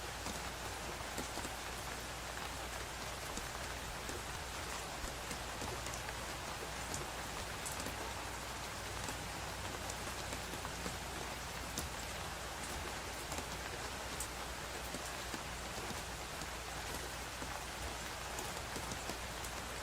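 Steady rain falling, an even hiss with many small sharp drop ticks throughout.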